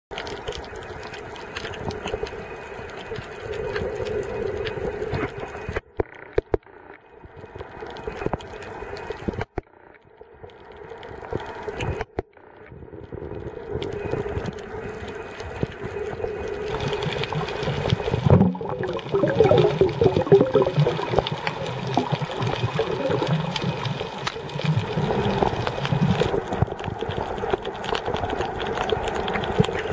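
Muffled underwater water noise with a steady hum, heard through an underwater camera's microphone. It drops off abruptly a few times, and a rougher low churning comes in from about the middle on.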